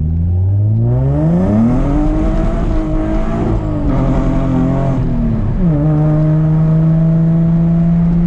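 Nissan 350Z's 3.5-litre V6, with full bolt-on modifications, pulling under acceleration, heard from inside the cabin. The revs climb over the first couple of seconds and hold, then drop about five and a half seconds in and settle to a steady cruising drone.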